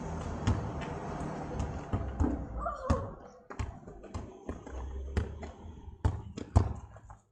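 A ball thudding on tarmac as it is kicked and bounced: a dozen or so separate hits at uneven intervals, coming quicker near the end.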